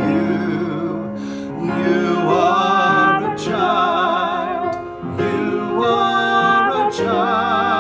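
A woman and a man singing a slow song together with piano accompaniment, holding long notes with vibrato and pausing briefly between phrases about five seconds in.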